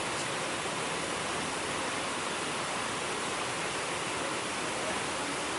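Steady, unbroken rushing of falling water from a small waterfall.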